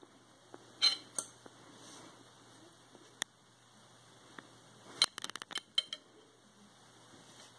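Pet rat eating pancake off a plate: scattered small sharp clicks and taps, with a quick run of about eight clicks about five seconds in.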